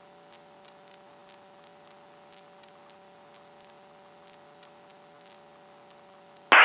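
Faint steady electrical hum with scattered faint clicks on the aircraft's radio/intercom audio feed between transmissions. Near the end the radio keys up with a sudden loud burst of static.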